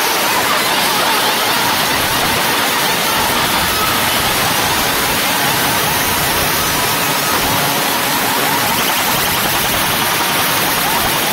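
Loud, steady, hiss-like din with no clear beat: a large DJ sound system and its crowd, overloading the phone's microphone into harsh noise.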